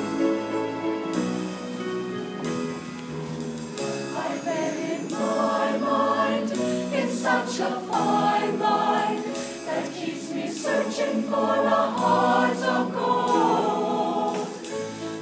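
Mixed show choir of men and women singing together in harmony.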